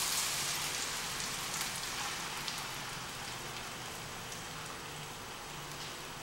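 Beaten eggs poured into a hot pan of sautéed onions, tomatoes and capsicum in ghee, sizzling with a steady hiss that slowly fades.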